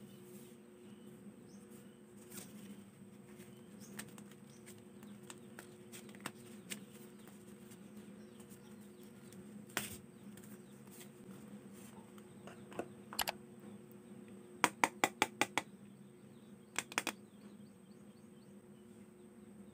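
Phone-box accessories being handled by hand: scattered sharp plastic clicks and taps, with a quick run of about six clicks near the middle and two more shortly after, over a steady low hum.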